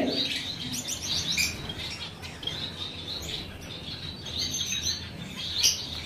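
A room of small cage birds, zebra finches among them, chirping: many short, high calls overlapping one another.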